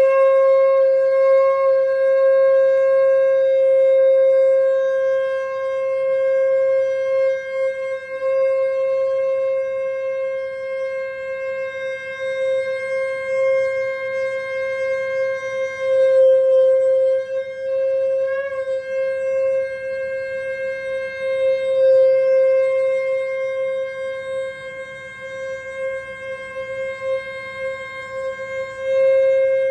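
A single loud horn-like tone, held at one steady pitch without a break the whole time, its loudness swelling and dipping.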